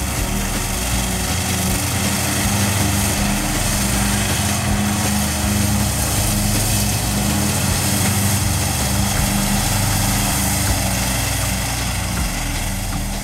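Zero-turn riding mower's engine running steadily while it mows tall, dry grass.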